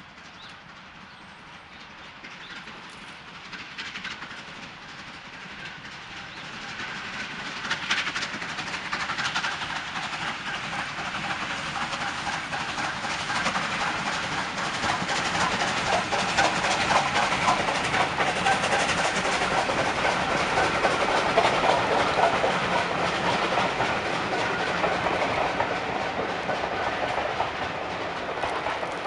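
Steam locomotive working a passenger train past, its wheels and the coaches clattering over the rail joints. It grows steadily louder from faint over the first several seconds and stays loud as the coaches go by.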